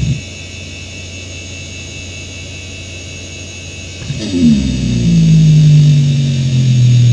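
Samsung Voyager 6 SV0844A hard drive (1999) spinning with a steady high-pitched bearing whine; about four seconds in, its heads start a fast run of seeks, a much louder buzzing drone whose pitch falls and then levels off, as Speedsys times its seeks.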